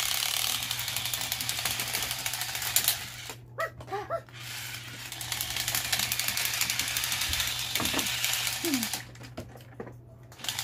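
Remote-controlled toy fighting robots' small gear motors buzzing and ratcheting as the robots punch, in two long runs with a pause about three seconds in.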